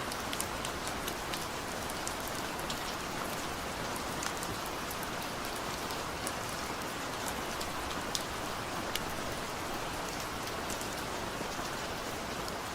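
Steady rainfall: a dense even hiss of rain with scattered individual drops ticking sharply on a surface.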